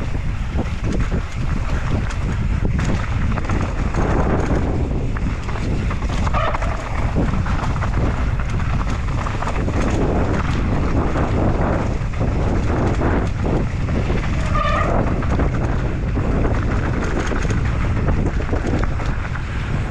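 Wind buffeting the microphone of a mountain bike's on-board camera, mixed with the rattle of tyres and bike over a rough dirt downhill trail at speed.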